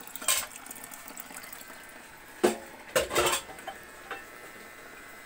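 A few sharp clatters and knocks of plastic, once near the start and a cluster about halfway through, as the aquarium's plastic tray top filter is handled, over a steady faint trickle of water from the filter.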